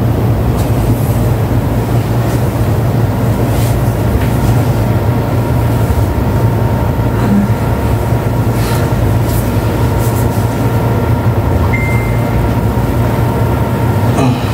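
Steady low mechanical hum with no change in level, carrying a faint high steady tone.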